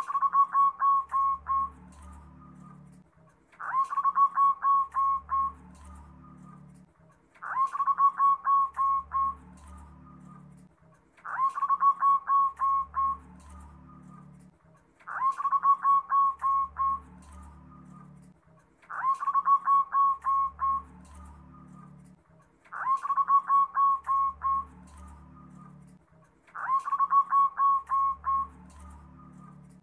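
Zebra dove (perkutut) singing: a phrase of rapid, evenly spaced cooing notes, repeated eight times about every four seconds.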